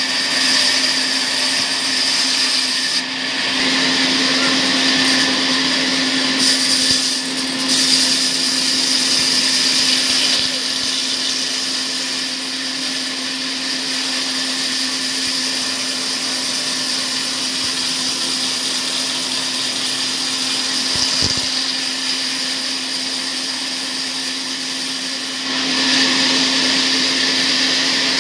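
Sawmill saw running and cutting palm-tree wood: a steady mechanical whine over a constant hum, growing louder a few seconds before the end.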